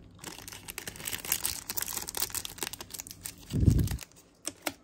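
Crinkling, rustling handling noise made of many small irregular clicks for about three and a half seconds, then a single dull thump.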